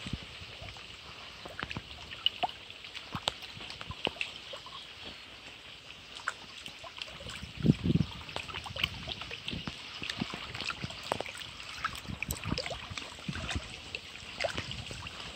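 Small waves lapping and trickling against shoreline rocks, with many small splashes and drips. A brief low thump about eight seconds in.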